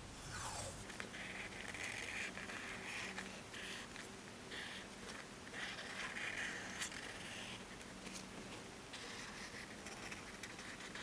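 Marker tip scratching over paper in short, uneven strokes, handwriting on a journal page.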